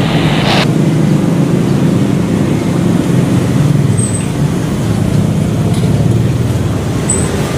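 Steady, loud low rumble of engine noise with no break. A clipped radio voice trails off in the first half-second.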